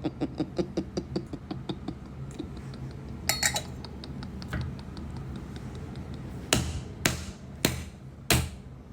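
A man's laughter trailing off, then four sharp knocks about half a second apart near the end.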